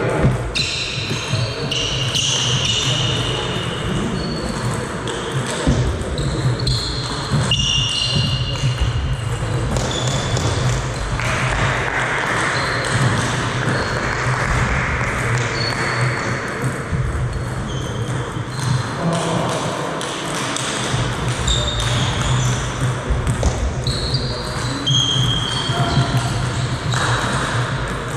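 Echoing sports-hall ambience between table tennis points: scattered sharp clicks of ping-pong balls bouncing, brief high shoe squeaks on the wooden floor, voices in the background and a steady low hum.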